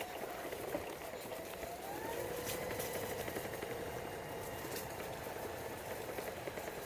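A motor vehicle passing, its whine rising in pitch about two seconds in and then holding steady, over a steady background hiss with a few faint clicks.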